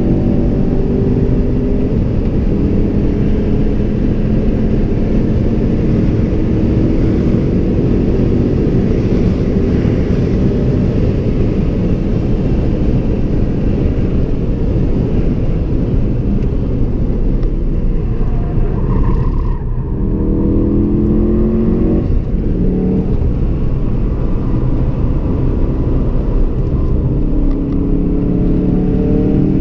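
Ford Focus RS engine under hard acceleration, heard from inside the cabin, its pitch climbing again and again as it pulls through the gears, over constant road and wind noise. About two-thirds of the way through it dips briefly as the driver lifts, then climbs again.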